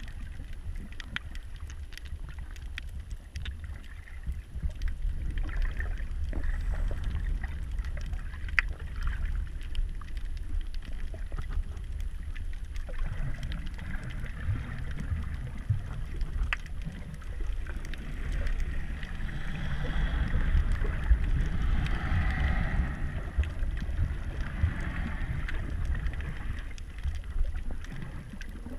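Muffled sound from underwater: a steady low rumble of water moving around the camera, with scattered sharp clicks and crackles. A louder hissing patch comes about two-thirds of the way through.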